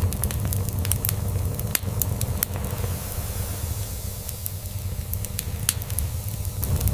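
Log fire crackling with scattered sharp pops, over a cat's steady low purr.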